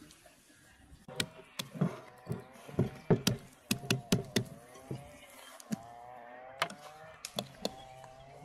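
A run of sharp knocks and thumps, about a dozen over four seconds, then a few single knocks over a faint low hum with short rising tones repeating.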